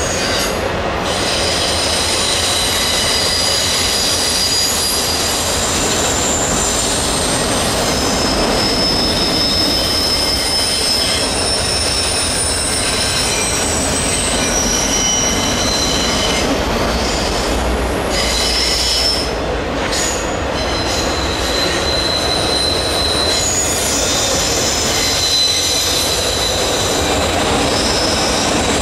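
Freight cars of a long freight train rolling past, their wheels squealing on the curve with several high, shifting squeal tones over a continuous rumble and clatter of the cars.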